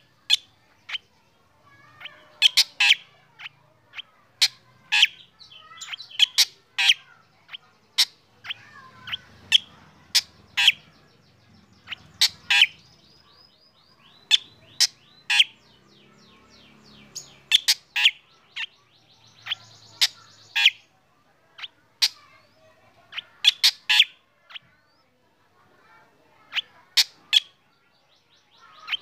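Black drongo singing: loud, very short, sharp notes, often two to four in quick succession, repeated every second or two, with faster rattling series around the middle.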